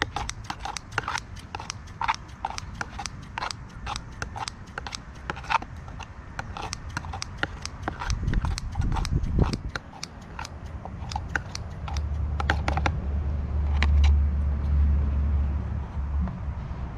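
Lobworms being chopped up for bait: a quick, irregular run of sharp cutting clicks, several a second, thinning out after about ten seconds. A low rumble rises about twelve seconds in and fades near the end.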